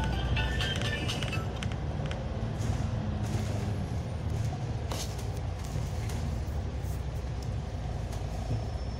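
Low, steady rumble of a bus's engine and road noise heard from on board, with a sharp click about five seconds in.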